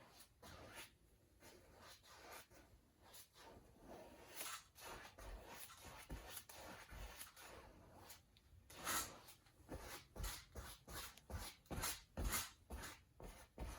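A wide flat paintbrush is swept in repeated short strokes across a canvas, making faint scratchy swishes. The strokes come faster and louder in the second half, about two a second.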